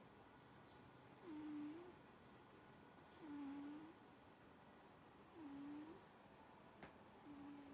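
Sleeping cat snoring softly: a short, low, whistly snore with a breathy hiss about every two seconds. A faint click near the end.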